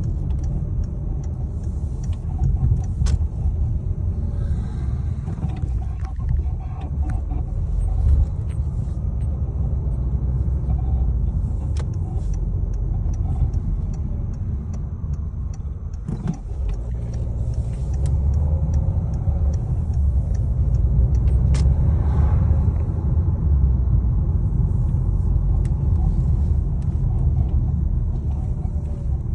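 2012 Peugeot 5008 on the move with a steady low rumble, and a creaking from the front of the car heard now and then, with scattered sharp clicks.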